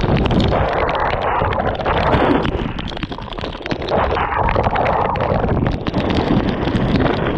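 Wind buffeting the microphone while off-road inline skates on air-filled tyres roll over a muddy trail, with many small clicks and knocks throughout.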